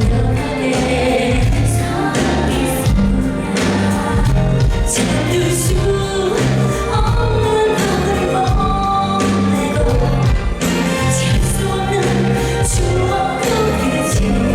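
A pop song performed live at a concert: singing with choir-like backing voices over band accompaniment with a steady bass line.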